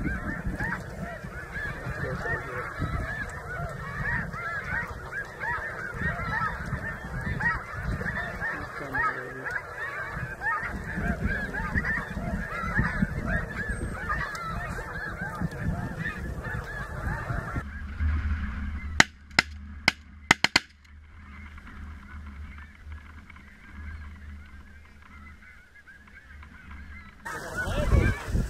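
Large flock of snow geese calling constantly, a dense chorus of honks over low wind rumble. About eighteen seconds in, the calling cuts off and a rapid volley of about five shotgun shots follows within two seconds. The goose calling returns near the end.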